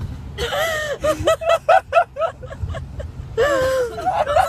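Women laughing uncontrollably: rapid, high-pitched ha-ha pulses, then a long wheezing, wavering laugh near the end, over the low hum of a car's road noise.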